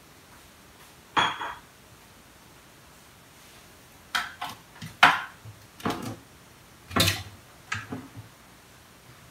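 Kitchenware being handled and set down on the counter by the sink: a string of sharp knocks and clatters. There is one knock with a brief ring about a second in, then a run of them from about four to eight seconds, the loudest near five seconds.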